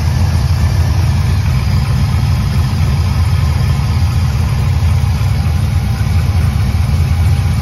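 Truck engine idling steadily under an open hood, a loud, even low rumble.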